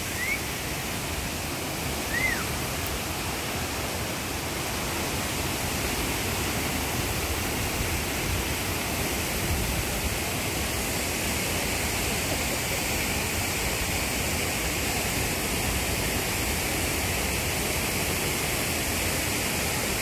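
Waterfall pouring into a plunge pool: a steady, even rush of falling water.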